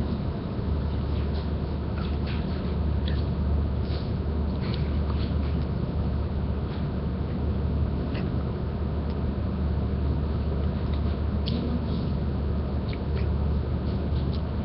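Steady low hum under a constant hiss of background noise, with scattered faint ticks.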